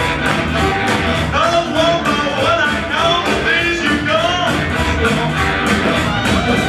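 Fast rock and roll music for a boogie woogie dance round, with a singer over a quick, steady beat.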